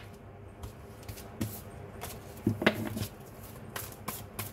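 A deck of oracle cards being shuffled by hand: a run of soft card rustles and light clicks, with a louder flurry about two and a half seconds in.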